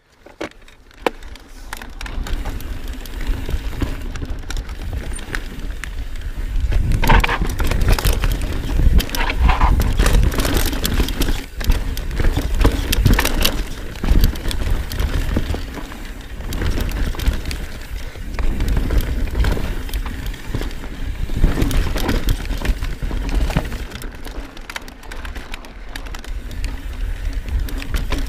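Ride noise from a Knolly Fugitive mountain bike descending rocky singletrack: tyres rolling over rock and dirt, with the frame and chain rattling and knocking over bumps, under a constant low rumble of wind on the microphone. It fades up from silence at the very start and gets louder on the faster stretches.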